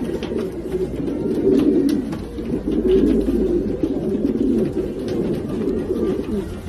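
Racing pigeons cooing, several birds at once in a steady, overlapping chorus of low coos, with a few light clicks among them.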